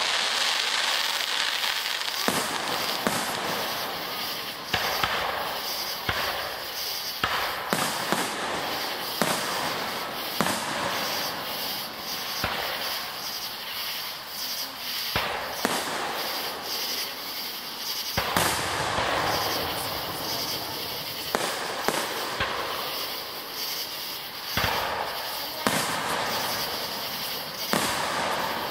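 Aerial fireworks shells bursting in an irregular run of sharp bangs, about one a second, over a continuous noisy background.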